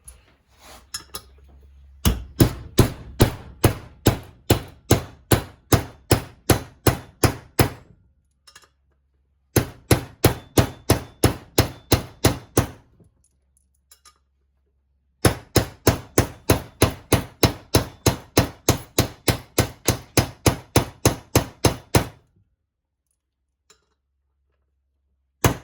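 A hammer tapping on a socket to drive a kickstart needle bearing into a Honda TRX450R engine case: quick, sharp strikes at about four a second, in three runs separated by short pauses.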